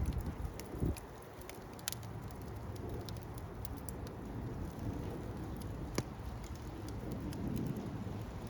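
Wood fire crackling: scattered sharp pops and snaps over a steady low rush, with one louder pop about six seconds in. A low rumble dies away about a second in.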